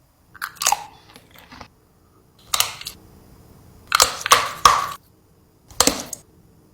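A series of short, sharp cracking noises, about five of them spread over several seconds with quiet gaps between.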